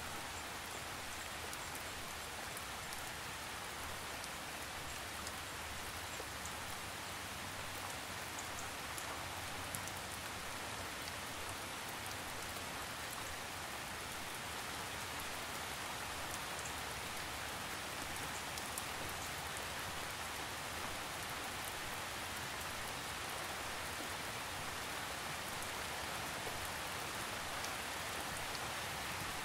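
Gentle, light rain falling steadily: an even hiss with faint, tiny ticks of individual drops.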